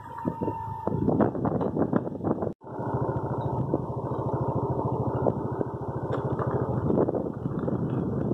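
A vehicle engine running steadily, heard on board while driving, with a rapid even pulsing. The sound cuts out sharply for an instant at an edit about two and a half seconds in, then carries on.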